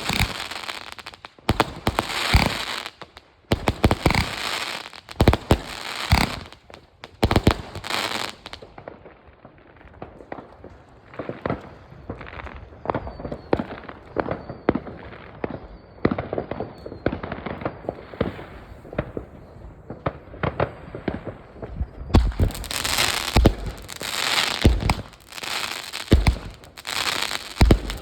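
Fireworks going off in quick succession: many sharp bangs and crackles, with a duller stretch in the middle before the bangs come thick and bright again about 22 seconds in.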